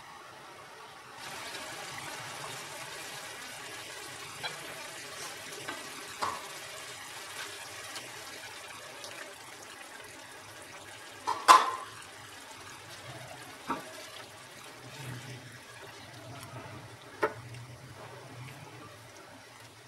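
Kebabs and gravy cooking in a pan make a steady hiss of simmering liquid. Several sharp knocks of a utensil on the pan cut through it, the loudest a little past halfway.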